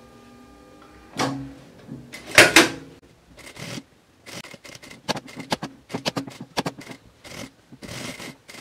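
Industrial sewing machine stitching bias binding around the edge of a fabric piece: a steady hum that stops about a second in, then a couple of loud knocks and a run of short, irregular clicks mixed with fabric rustle.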